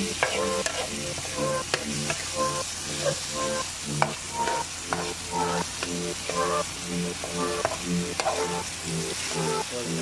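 Chopped onion, tomato and carrot sizzling in oil in a large iron pan while a metal spatula scrapes and stirs them in regular strokes, about two a second. Now and then the spatula clacks sharply against the pan.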